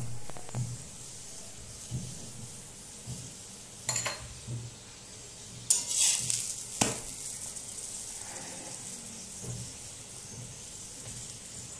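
Paratha sizzling on a hot iron tawa, a steady hiss, with a metal spatula scraping and clinking against the pan a few times, sharpest about four seconds in and again around six to seven seconds in.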